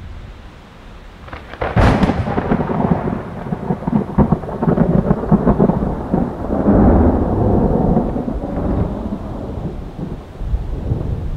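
Thunder from an approaching thunderstorm: a sharp crack about two seconds in, followed by a long rolling rumble.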